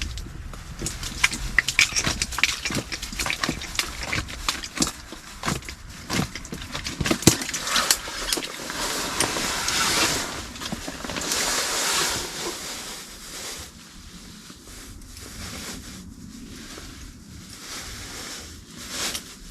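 Close handling sounds while a freshly caught brook trout is unhooked on the ice: a quick run of clicks and knocks for the first several seconds, then rustling and crunching that fades to a few scattered ticks.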